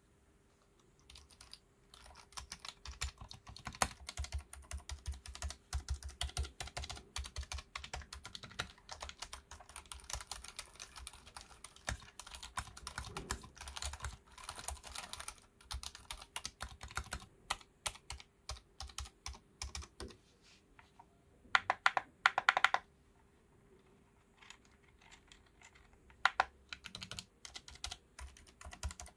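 Typing on a Gamakay LK67 mechanical keyboard fitted with Gamakay Phoenix linear switches: fast, continuous keystrokes for about twenty seconds, then a short run of louder strokes followed by sparser taps.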